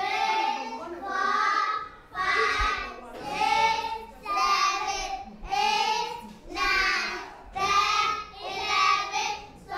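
Young children singing together in short, evenly spaced phrases, about one a second.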